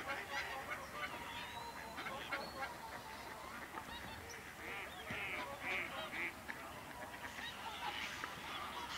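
A large flock of birds calling, with many short calls overlapping in a dense, continuous chorus.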